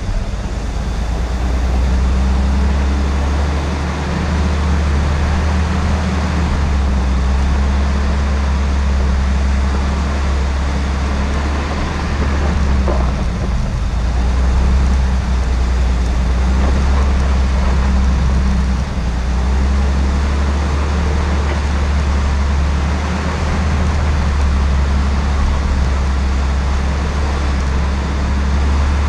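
Jeep CJ5 climbing a steep, rocky dirt trail, its engine running steadily in a low drone with an even rushing noise over it.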